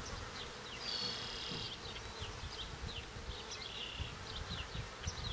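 Honeybees buzzing around an opened hive, a steady low hum, with short high chirps over it.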